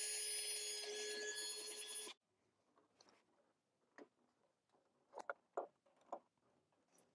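Power drill running steadily with a whine while drilling a small hole in the heater's sheet-metal housing, cutting off abruptly about two seconds in. Then a few light clicks and taps as a screwdriver works a terminal.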